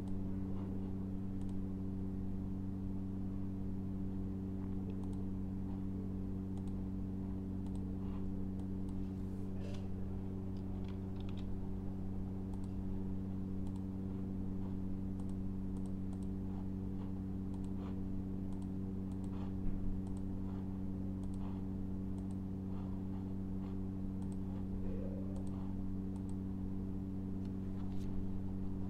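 Scattered clicks of a computer mouse and keyboard being used, over a steady low hum.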